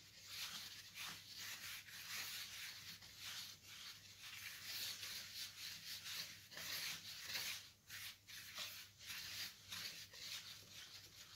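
Gloved hands rubbing and working soda ash powder mixed with white oil in a bowl: a dry, hissy rubbing in quick, irregular strokes.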